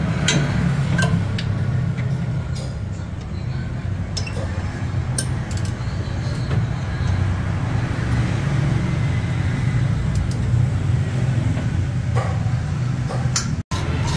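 Steady low mechanical hum, with scattered sharp metal clinks as a socket wrench works the bolts of an engine underside cover.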